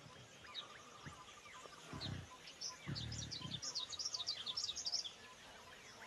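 Forest birds chirping, with many short quick calls and sweeping notes that grow busier in the second half, and a rapid steady trill in two stretches. Two low rumbles come through about two and three seconds in.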